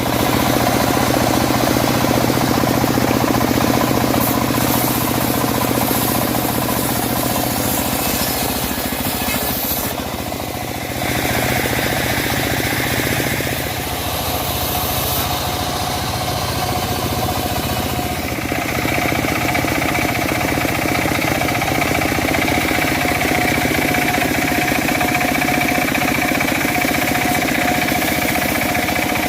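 A homemade band sawmill runs steadily on its engine. The sound dips and changes briefly about ten seconds in, and from a little past halfway a steady high whine rides on top of the motor noise.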